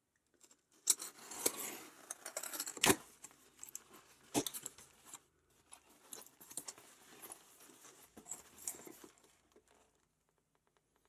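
A blade cutting and tearing open a cardboard package's tape, with packaging crinkling and rustling as it is handled and a few sharp knocks, the loudest about three seconds in.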